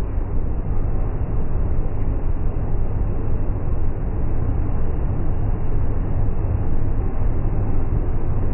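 Caterpillar 374D excavator's diesel engine running, a steady low rumble, while the upper structure is loaded against the swing bearing to check the slew ring for play.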